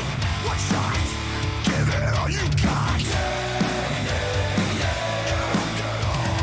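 Heavy metal music: distorted electric guitars, bass and pounding drums.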